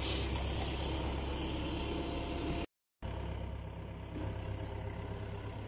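Backhoe loader's diesel engine running steadily, a low hum with the machine working its digging arm. The sound breaks off for a moment a little under three seconds in, then carries on slightly quieter.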